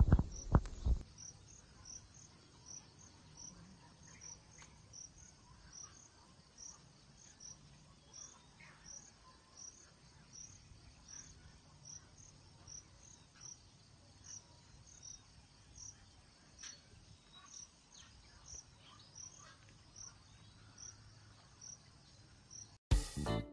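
An insect chirping steadily, high-pitched, about twice a second, with faint scattered bird calls in the background. A couple of knocks in the first second, and music cuts in near the end.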